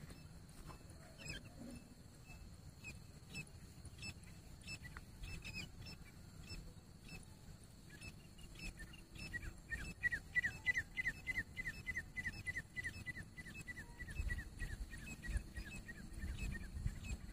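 Grey francolin calling: a few scattered short notes, then, from about nine seconds in, a fast run of short down-slurred notes, about four a second, that fades out near the end. A steady high-pitched hum runs behind.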